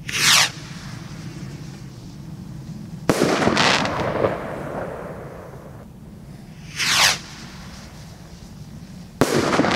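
Zeus Fireworks Luna Rockets, Category 2 firework rockets, fired one after another. Each goes up with a short falling whoosh, then bursts about three seconds later with a sharp bang and a few pops, twice in all.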